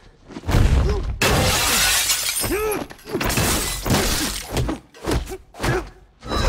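A thud, then a glass-paned wooden door smashing, with glass shattering and falling for a couple of seconds. After it comes a quick run of punch and block impacts from a fight.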